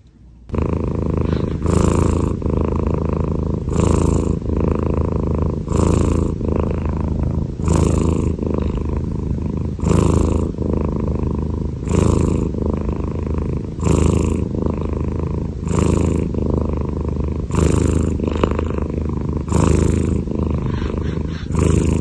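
A Scottish Straight cat snoring loudly in its sleep: a deep, rumbling snore like a rumble of the earth, swelling with each breath about once every two seconds.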